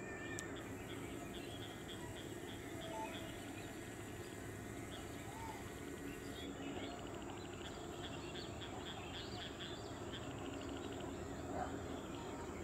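Birds chirping in short scattered calls over a low, steady background rumble.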